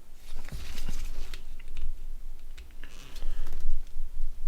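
Irregular small clicks, taps and scraping from the plastic buttons and parts of a disassembled Nokia N91 being worked by hand, with low handling bumps.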